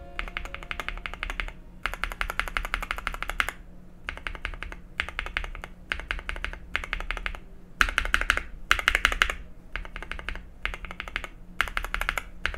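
Typing on a mechanical keyboard: quick runs of clacking keystrokes, each run about a second long, with short pauses between them.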